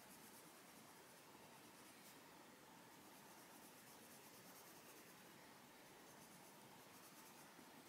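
Faint, steady scratching of an Arteza Expert coloured pencil shading on paper.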